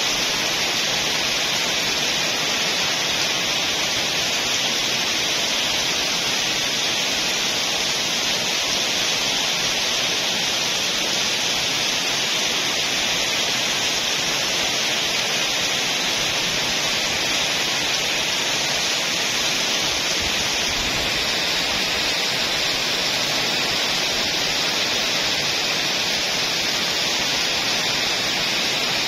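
Heavy rain pouring steadily onto leaves and foliage, a dense even hiss that doesn't let up.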